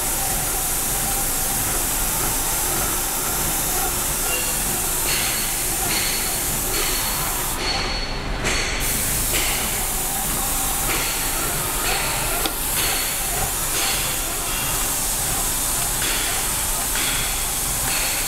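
Graco Ultra Max II electric airless paint sprayer running and spraying, a steady hiss. From about five seconds in, a regular pulse comes a little faster than once a second.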